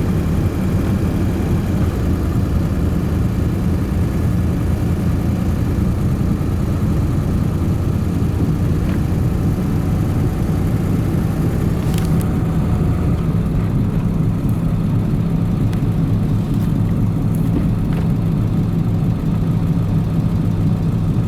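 Cab sound of a 2002 Ford F250 with a straight-piped 7.3 Powerstroke V8 turbo diesel driving on the road: a steady engine and road drone with a rotating, grinding noise under it. The drone's pitch shifts about halfway through. The owner suspects a bad front wheel bearing, or perhaps worn tyres or an unbalanced driveshaft.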